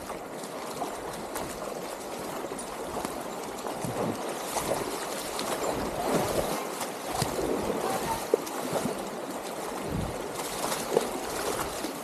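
Stream water running steadily, with scattered small gurgles and splashes.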